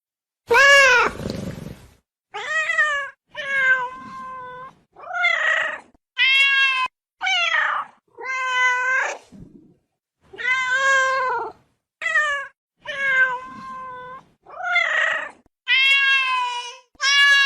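Ocelot meowing over and over: about a dozen separate calls with short gaps between them, each lasting up to a second and a half, their pitch arching up and down within each call.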